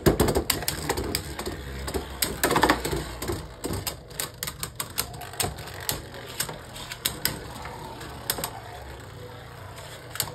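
Two Beyblade Burst spinning tops launched from a launcher and battling: rapid clicks and knocks of hard plastic tops striking each other, dense at first and thinning out over about eight seconds as the spin dies down.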